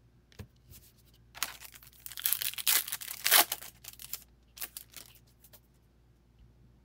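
Foil trading-card pack wrapper being torn open and crinkled: a run of tearing and crinkling about a second and a half in, lasting about two seconds, then a few lighter crinkles.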